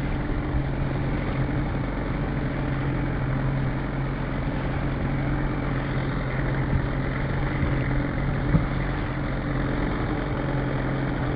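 Boat motor running steadily at slow trolling speed, with one sharp knock about eight and a half seconds in.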